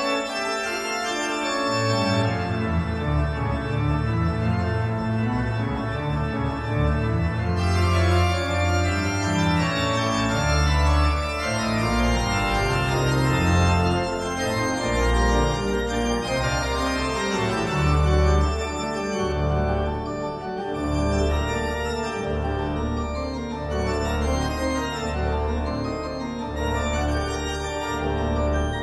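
Background music with held keyboard chords and a low bass line that comes in about two seconds in.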